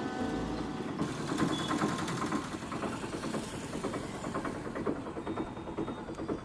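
Auto-rickshaw's small engine running, with a fast, even run of knocks that sets in about a second in.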